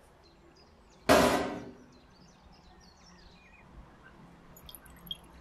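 One sudden loud knock or clatter about a second in, dying away over about half a second, followed by faint high chirps like birds in the background.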